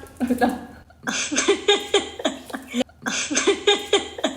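A woman's voice in quick, choppy syllables whose words are not made out, broken by two sudden short gaps.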